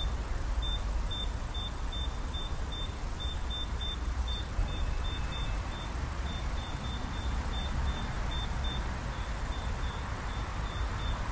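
Ground-penetrating radar unit beeping evenly, about three short high beeps a second, over a steady low rumble.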